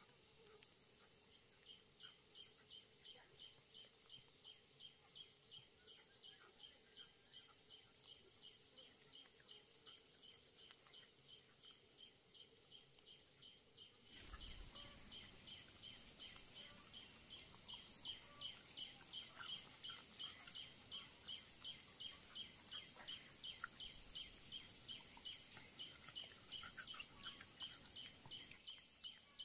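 Faint insect chorus: a steady high-pitched buzz with a regular chirping pulse repeating several times a second. It grows louder about halfway through.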